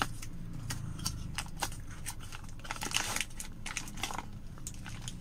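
Cardboard box and plastic bag being handled and opened: an irregular run of scrapes, taps and crinkles, busiest about three seconds in, as a drill chuck in its plastic bag is drawn out of the box.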